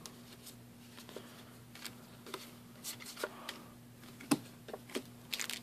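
Trading cards being handled and flipped through by hand: faint sliding rustles and a scattering of light clicks as the cards are sorted, over a low steady hum.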